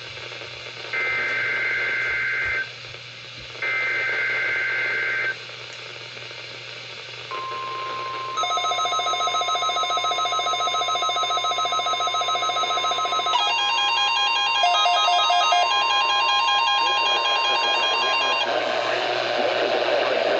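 Emergency Alert System SAME header: two short bursts of two-tone warbling digital data, the last two of three. A couple of seconds later the steady 1050 Hz NOAA Weather Radio warning alarm tone starts and holds for about eleven seconds, marking a Required Weekly Test. Over the tone, a rapid pulsing electronic beep starts about a second later and changes to a different pattern about halfway through.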